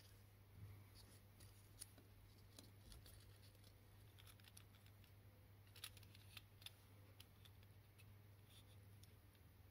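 Near silence with a few faint light clicks and taps as a tin toy car's metal chassis and a small block are handled and fitted together. The clicks cluster around six seconds in, over a low steady hum.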